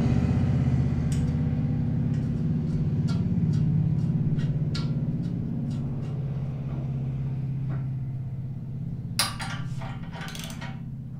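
Low steady engine rumble, slowly fading, with a few small metal clicks of bolts being handled. About nine seconds in, quick bursts of a ratchet wrench start, snugging the bolts that hold the end cap to the bumper.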